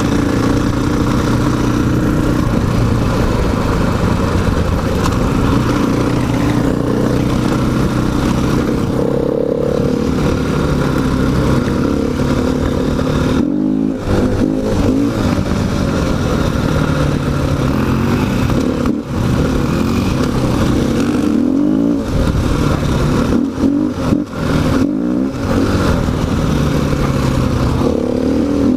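Dirt bike engine running while riding, its pitch rising and falling with the throttle, with a few short drops as the throttle is closed, notably about two thirds of the way through.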